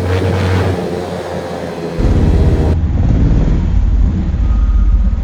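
Motorcycle engine running through a loud aftermarket exhaust: a steady low rumble that steps up louder and rougher about two seconds in.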